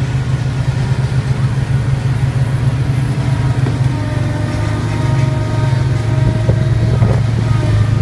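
Small ride-on road roller's engine running at a steady, loud drone as the machine drives along.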